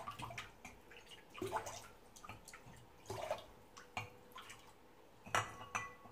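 Water poured from a small glass into a glass bowl, then fingers swishing in the water to dissolve salt, with small splashes and drips. A sharper clink against the glass bowl, with a brief ring, about five seconds in.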